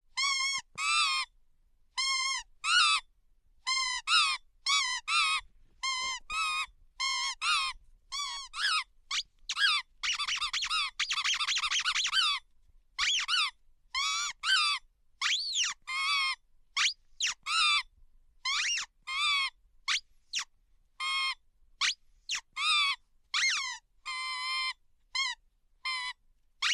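A long run of short, high-pitched squeaks, about two a second, each wavering in pitch, with a denser unbroken stretch of squeaking about ten seconds in.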